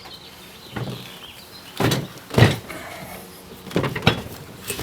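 Handling noise: about six dull knocks and bumps, the loudest about two and a half seconds in.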